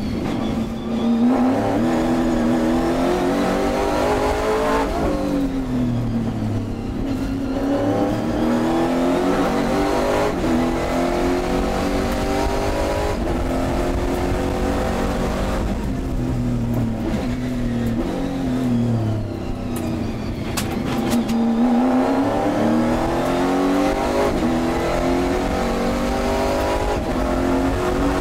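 Racing car engine heard from inside the car under hard acceleration. The revs climb and drop repeatedly as it shifts through the gears, dip about two-thirds of the way through, then pull up again, over a steady rush of wind and tyre noise.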